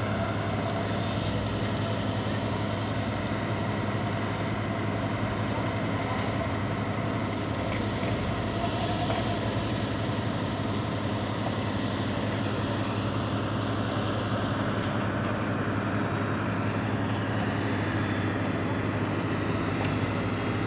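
Road construction machinery with a heavy engine running steadily at a constant speed.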